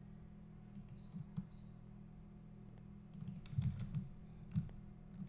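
Computer keyboard keys clicking as shortcuts are typed: a few scattered keystrokes about a second in, then a quicker cluster around three to four seconds in, over a steady low hum.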